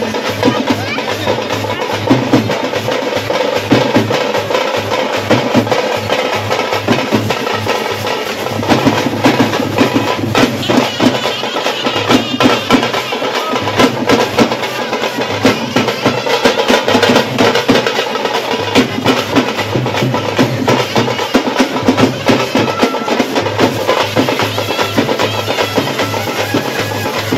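A troupe of folk drummers beating hand-held drums with sticks in a fast, dense, unbroken rhythm.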